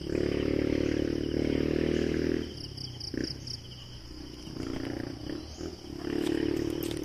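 A person out of breath from climbing steps, groaning aloud with hard breathing: one long strained groan, then two shorter ones. Faint high chirps come in between.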